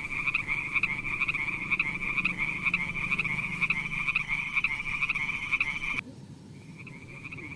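A frog calling in a steady run of quick, evenly spaced croaking pulses. It breaks off sharply about six seconds in and starts again about half a second later, a little fainter.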